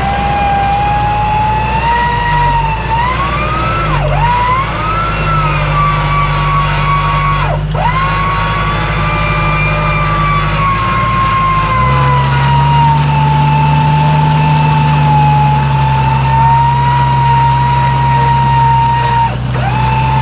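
Jeep Cherokee working through door-deep mud: engine running steadily under load beneath a high, wavering whine that drops sharply and recovers three times, about four seconds in, near eight seconds, and near the end.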